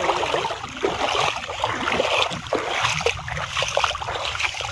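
Shallow river water splashing and sloshing in irregular, uneven bursts.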